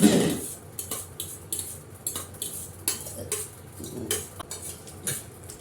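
Cutlery clinking and scraping against bowls in quick, irregular clicks while people eat chow mein fast. A louder, lower burst sounds right at the start.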